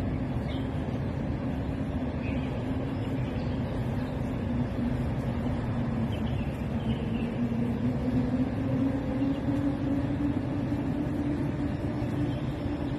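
Steady outdoor city traffic hum: a wash of noise with a low droning tone that wavers slightly in pitch.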